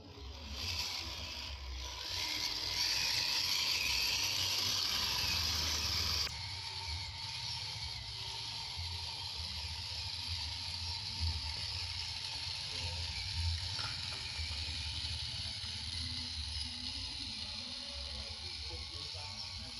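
1/10-scale RC crawler truck driving over gravel: its electric motor and gears whir steadily while the stones crunch under the tyres. It is louder for the first few seconds, then drops suddenly.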